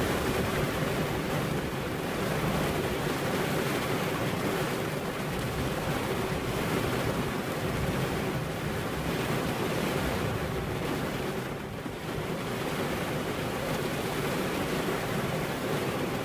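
Steady rain falling, an even continuous hiss, easing slightly for a moment about twelve seconds in.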